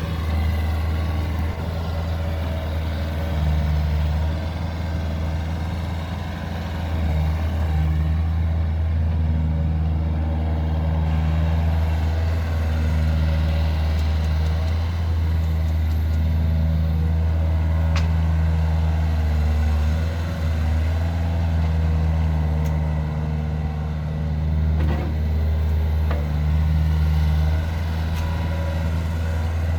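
Mitsubishi MX35 mini-excavator's diesel engine running at a steady speed, its low hum swelling and easing slightly as the load changes. A single sharp click sounds partway through.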